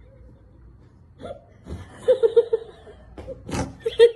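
A woman giggling in quick short bursts, with a sharp breathy burst about three and a half seconds in.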